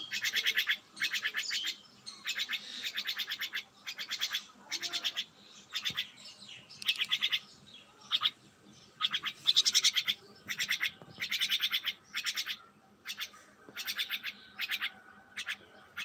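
A myna calling in a long run of short bursts, about two a second, each burst a fast rattle of notes, broken by a few brief pauses.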